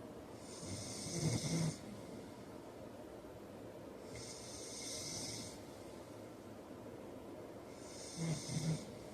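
A man snoring in his sleep. Three breaths come about every three and a half seconds: the first and last carry a loud snore, and the middle one is only a softer hissing breath.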